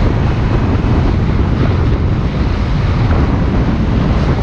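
Steady wind rushing over the microphone of a camera moving along a road, with vehicle and road noise mixed in.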